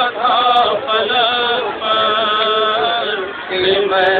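Male voices reciting a nauha, a Shia lament for Muharram, in a chanted melody with long held notes that bend in pitch, with a brief break about three and a half seconds in.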